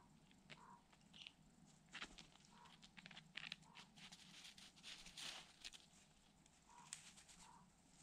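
Faint crackling and rustling in snow as a bird of prey flaps down onto a carcass and shifts about on it, with the loudest rustle about five seconds in. A few short, soft notes sound now and then.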